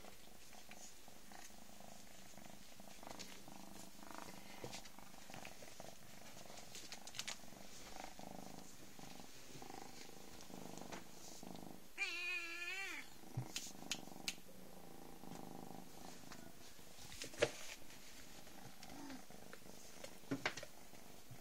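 Ten-week-old kittens purring, with one wavering meow of about a second, about twelve seconds in. Scattered light knocks and taps come from the kittens at play.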